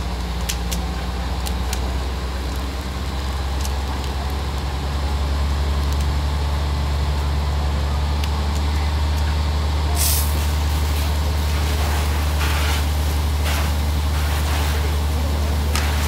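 Steady deep drone of a fire engine running its pump, with water from a fire hose hissing against a burning van. There are scattered crackles early on and a louder burst of hiss about ten seconds in.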